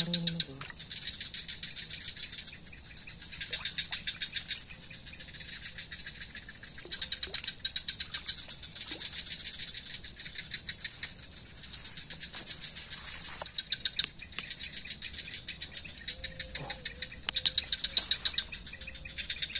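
Night insect chorus: bouts of rapid, pulsed chirping about a second long, returning every three seconds or so, over a steady high-pitched insect whine.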